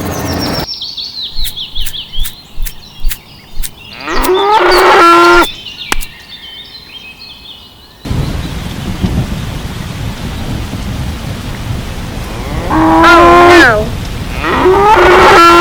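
Cattle mooing in three long calls, the first about four seconds in and two more near the end, after a quick run of sharp clicks. From about halfway, a steady rain hiss with a low thunder rumble runs underneath.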